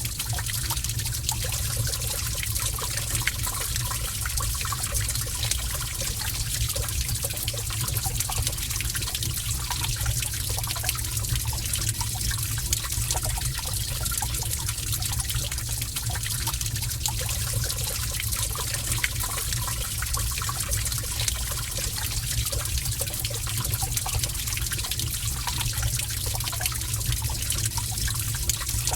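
Cave water ambience: water trickling and running steadily, with many small drips and splashes scattered through it over a steady low rumble.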